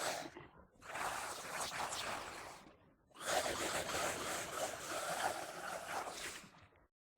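Raspy, harsh monster-like voice sound effect of an alien zombie, growling and rasping in three bursts with short gaps, the last and longest about three and a half seconds.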